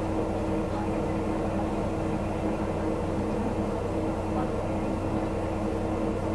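Diesel railcar's engine running steadily under the floor, a low even drone heard from inside the passenger cabin.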